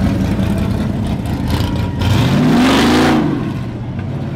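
A classic muscle car's engine running as the car drives slowly past, revved once a little past two seconds in, its pitch rising and falling back.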